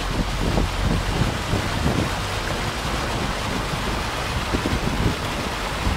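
Vehicle wading through floodwater: a steady rush of water under a low rumble, with irregular splashes.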